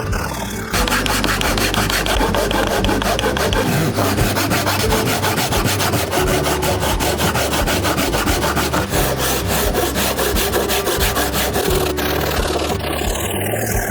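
A tool working wood in fast, even strokes, a rhythmic scraping like sawing or rasping a board. It starts just under a second in and stops about a second before the end, over faint background music.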